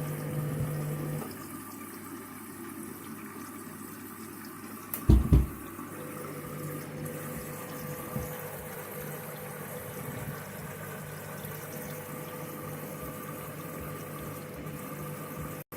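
Washing machine taking in water: a steady rush of water with a low hum that stops early and comes back about six seconds in. One heavy thud about five seconds in.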